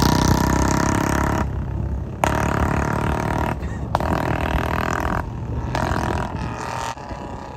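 Royal Enfield Bullet's single-cylinder engine through a short-boot exhaust, riding along with the throttle opened and shut several times. No backfire pops come.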